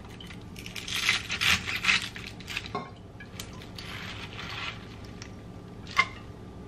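Chef's knife chopping spinach on a plastic cutting board, a quick run of about half a dozen chops. Then the cut leaves rustle as they are gathered by hand, and a single sharp clink comes near the end.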